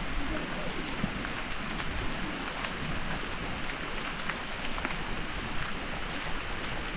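Heavy rain falling steadily, with many scattered ticks of individual drops striking close by.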